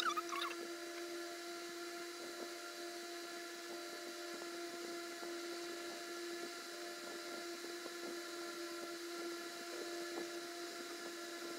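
Steady hum of a small electric motor, holding one pitch with a few fixed higher tones over it. Right at the start there is a brief high, falling chirp.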